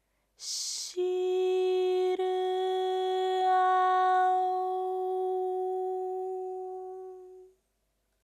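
Intro sound design under an animated logo: a brief airy whoosh, then one long held note that slowly fades away near the end.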